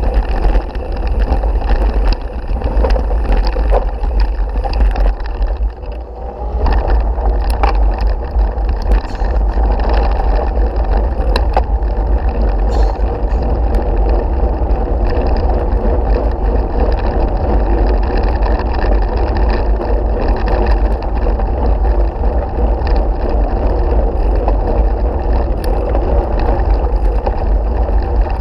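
Mountain bike ridden over gravel and dirt tracks, heard through a bike-mounted action camera: a steady loud rumble of wind and road buffeting on the microphone, with tyre noise and scattered rattling clicks from the bike. The rumble eases briefly about six seconds in.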